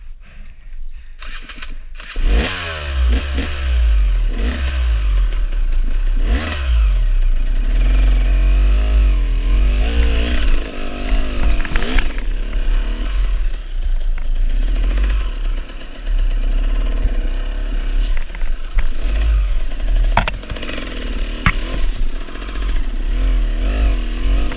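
KTM enduro motorcycle engine starting about two seconds in, then running loud with the revs rising and falling unevenly.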